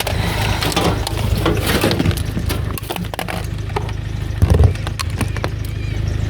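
Hard objects knocking and clattering as junk in a rubbish pile is moved about, over a car engine idling. One louder knock comes about four and a half seconds in.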